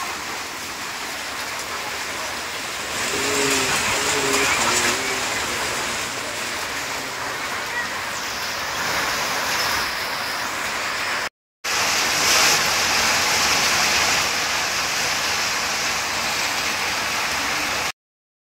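Heavy rain pouring in a steady rush, swelling louder twice, and breaking off abruptly for a moment near the middle and again near the end.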